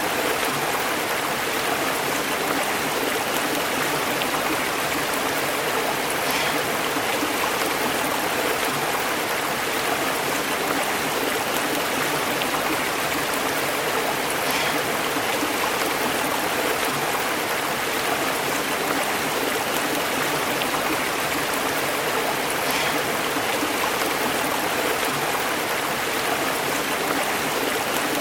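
Stream flowing and burbling over rocks, a steady even rush of water.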